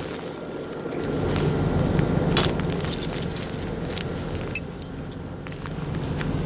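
Heavy truck engine running steadily, swelling a little from about a second in, with scattered light metallic clinks and jingles over it.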